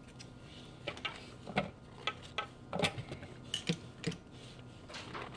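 Light, irregular clicks and taps of mushroom pieces dropping into a plastic food processor bowl, about a dozen scattered over a few seconds.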